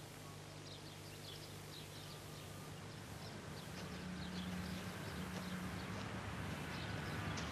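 Small birds chirping in short high calls over a low steady hum, all growing a little louder toward the end.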